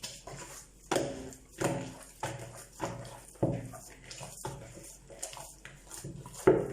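Hands pressing and turning msemen dough in an oiled bowl, making a run of soft, quick thumps about once or twice a second.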